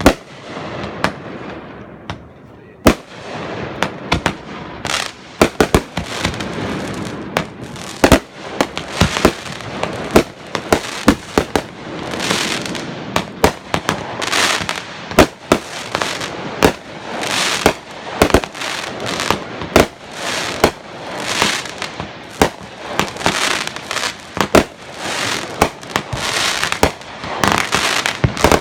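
Fireworks display: a barrage of sharp bangs with crackling and hissing in between, sparse for the first few seconds and then rapid and almost continuous.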